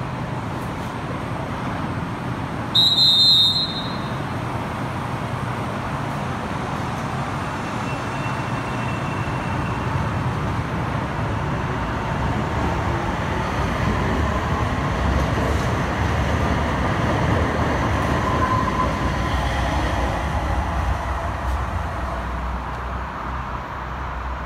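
Ottawa LRT light-rail train (Alstom Citadis Spirit) at a platform. A short, loud, high beep sounds about three seconds in, typical of a door-closing warning. The train then pulls away, its running noise swelling to a peak and easing off as it clears the station.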